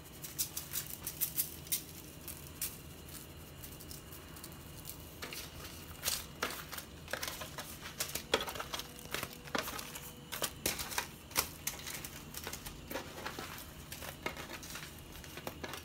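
Irregular clicks, taps and crinkles of aluminium foil and a seasoning shaker as fish fillets are seasoned and handled on a foil-lined tray, in scattered clusters.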